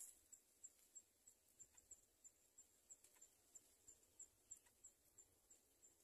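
Faint insect chirping: short, high-pitched chirps repeating evenly about three times a second.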